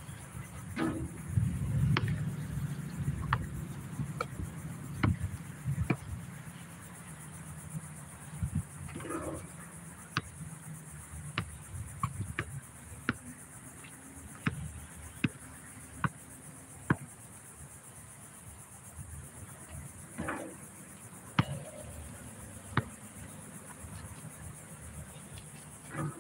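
A basketball bounces on an outdoor concrete court in sharp single thuds at irregular intervals. A steady high insect buzz runs underneath, with a low rumble in the first few seconds.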